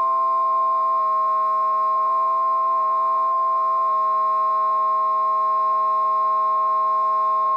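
Synthesized harmonica vocoder sound effect: a sustained electronic chord of steady tones at a constant level, led by one bright high note. The lower notes change about a second in and again about four seconds in.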